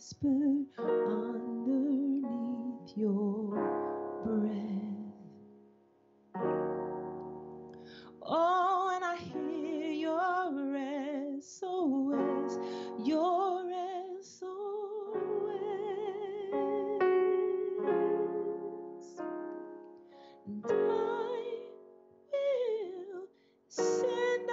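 A woman singing a slow worship song with vibrato on the held notes, accompanied by keyboard chords.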